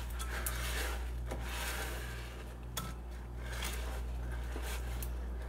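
Spoon stirring Rice Krispies cereal into sticky melted marshmallow in a nonstick pot, a soft scraping, squishing rub with a few light clicks against the pot. A steady low hum runs underneath.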